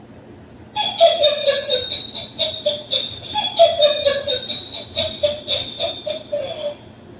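Motion-activated electronic toy going off, playing a recorded child-like laughing clip of falling, choppy notes for about six seconds, starting about a second in.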